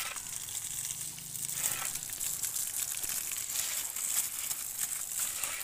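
Water from a hose splashing and spattering onto a brick wall, soaking the brickwork before it is plastered.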